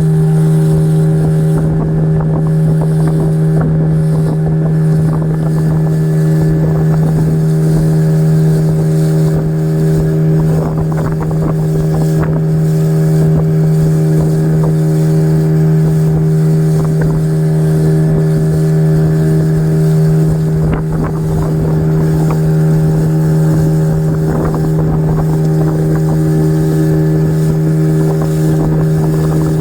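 Speedboat engine running at a steady speed under way, one constant drone with a hiss of water and wind under it.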